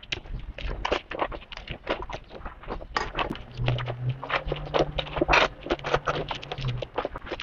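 Close-miked biting and crunchy chewing of bitter gourd: a quick, dense run of crisp crunches, several a second. A low steady hum sounds for a few seconds in the middle.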